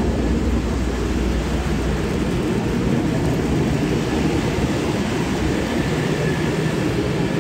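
Steady rumble of large rooftop HVAC units running, a dense low drone with faint steady tones in it.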